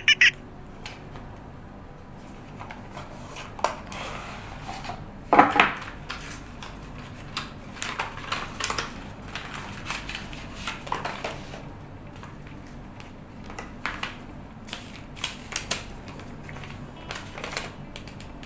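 Handling a cardboard smartphone box: scattered taps, scrapes and rustles as the lid and inner trays are lifted and set down, the loudest about five seconds in. Paper leaflets rustle near the end.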